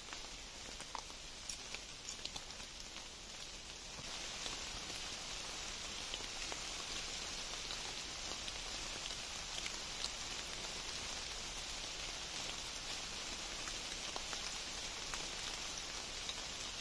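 A steady high-pitched hiss of outdoor background noise with a few faint ticks, getting louder about four seconds in.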